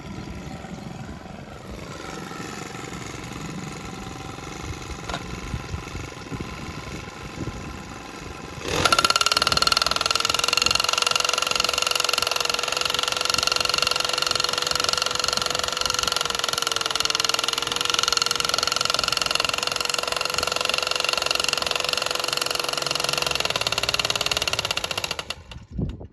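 Small petrol engine of a handheld power tool running: quieter and uneven at first, then about nine seconds in it jumps to a loud, steady full-throttle run that holds until it cuts off suddenly near the end.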